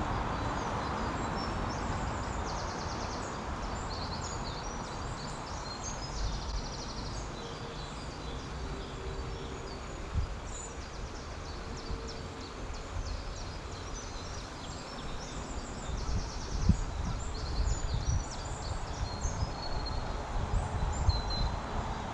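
Songbirds chirping and trilling over a steady rushing background noise, with low knocks and rumbles from about two-thirds of the way in.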